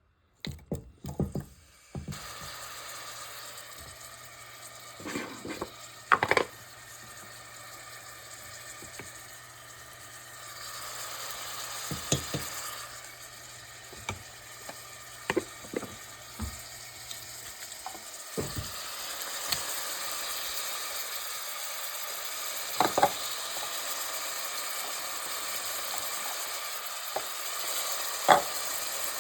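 Food sizzling in a hot pan while it is stirred, with a sharp knock of a utensil against the pan every few seconds. The sizzle starts about two seconds in and grows louder about two-thirds of the way through.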